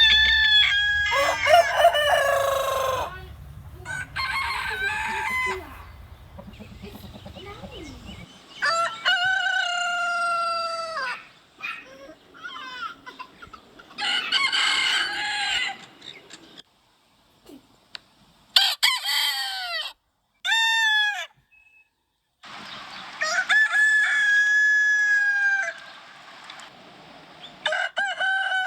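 Roosters crowing again and again, about eight cock-a-doodle-doos in turn, each a second or two long and falling in pitch at the end, with pauses between; a couple of the crows near the middle are higher and shorter.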